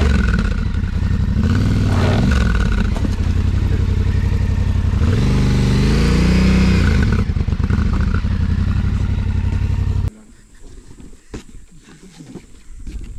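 Dirt bike engine revving hard in several surges, its pitch rising and falling, then stopping abruptly about ten seconds in.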